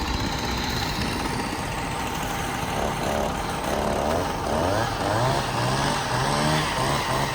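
An engine running steadily, with a motor revving up again and again in short rising surges from about three seconds in.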